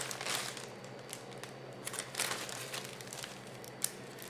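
Soft, intermittent rustling and crinkling of paper towels handled on a cookie sheet, with a single sharp click near the end.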